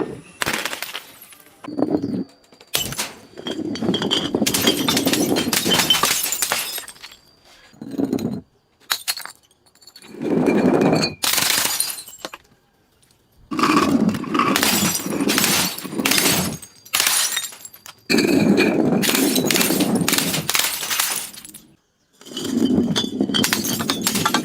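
Glass being broken and crushed: crunching, crackling and shattering glass in about six separate bouts with short pauses between them.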